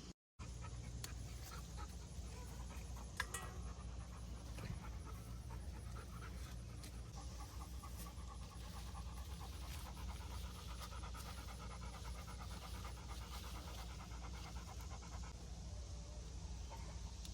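A dog panting steadily, in quick rhythmic breaths.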